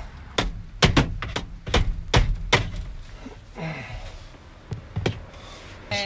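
A series of sharp knocks: a mallet hammering the Dodge Ram's manual gear shift lever down onto its shimmed base to take the play out of the stick. There are about nine quick strikes in the first two and a half seconds, then two more near the end.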